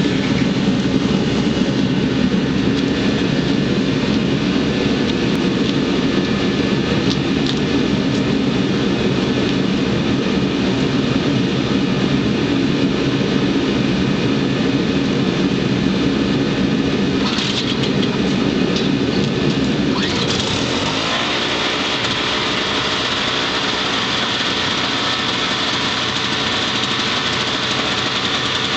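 Small engine of an MTD 4.75 hp snowblower running steadily. About twenty seconds in the sound shifts: the low rumble eases and a higher hiss rises, then it runs on steadily.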